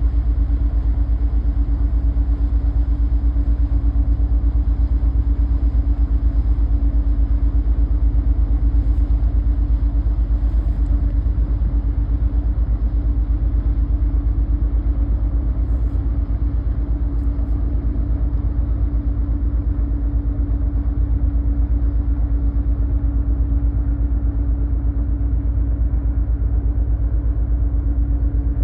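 A ship's diesel engine running with a steady, deep rumble and a rapid, even throb, with a constant hum above it.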